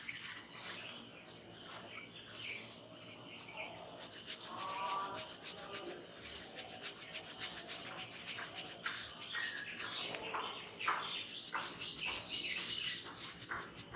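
Hands rubbing quickly over hair and scalp in a head massage, close to the microphone: quick rhythmic strokes, several a second, coming in two spells.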